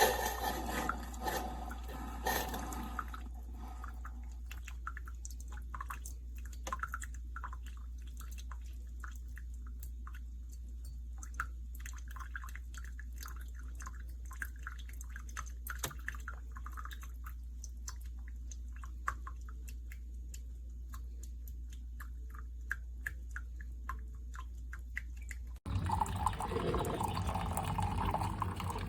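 Coffee dripping from a Mr. Coffee single-serve coffee maker into the cup below. A louder splashing stream for the first few seconds thins to a long run of quick drips over a low steady hum. About 26 s in, a louder pouring sound cuts in.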